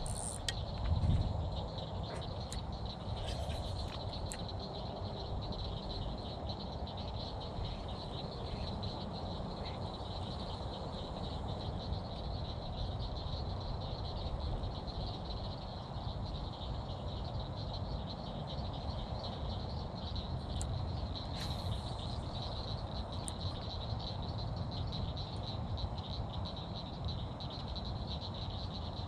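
A steady, high-pitched chorus of frogs calling from the pond, continuous throughout, over a low rumble, with a few faint clicks.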